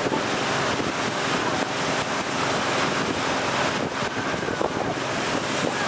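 Tow boat running at speed: engine and rushing wake and spray, with wind buffeting the microphone. The noise is steady throughout.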